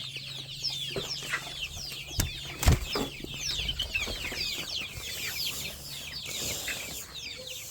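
A flock of chickens calling over one another, a constant chatter of many short, high, falling chirps and clucks. Two sharp knocks stand out, a little over two seconds in and just under three seconds in.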